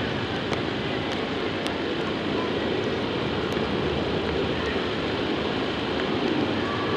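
Steady wind noise on the microphone: an even, rumbling hiss that stays level throughout, with no distinct events standing out.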